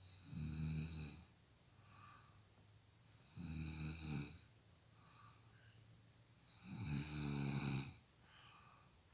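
A person snoring loudly: three long snores, each about a second, roughly three and a half seconds apart.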